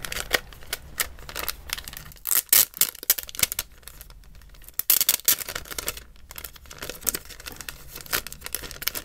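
Clear plastic sleeve crinkling and crackling as a cardboard album box is worked out of it by hand, in quick irregular crackles. Louder bursts come a little over two seconds in and again about five seconds in.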